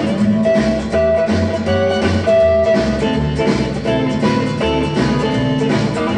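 A rock and roll record playing on an old wooden console phonograph and heard through its built-in speaker: guitar over a steady drum beat.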